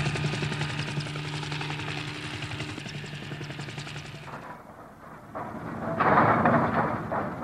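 Helicopter drone with steady low tones and fast rotor pulsing, fading out about four and a half seconds in. About six seconds in it gives way to a louder, noisier machinery sound from an oil-well pumpjack.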